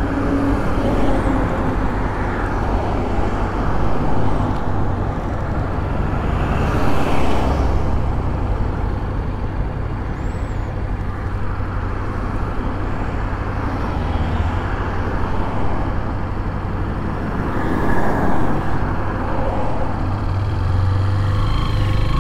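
Motorcycle engine idling while road traffic passes close by, cars and a truck each swelling and fading as they go past. The bike's low engine hum grows louder near the end.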